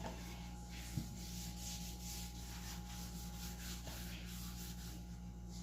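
Hand sanding a wooden board: sandpaper rubbed back and forth in quick strokes, about two to three a second, with a single light knock about a second in.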